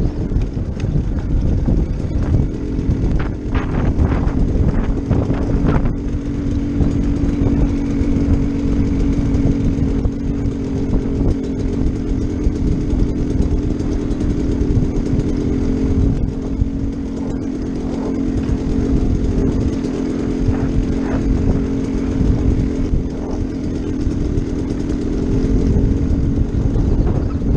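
Off-road motorcycle engine running at a fairly steady speed, its pitch holding nearly level, with wind buffeting the microphone.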